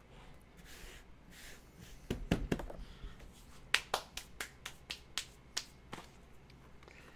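A run of irregular sharp clicks and taps from things being handled by hand, starting about two seconds in. No power tool is running.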